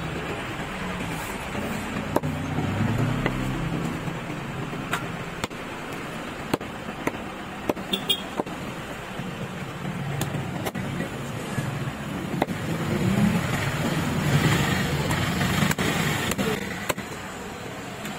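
Steady low rumble of a motor vehicle's engine, with scattered sharp clicks and knocks from a long knife cutting through a large giant trevally on a wooden log chopping block. The rumble grows louder for a few seconds past the middle.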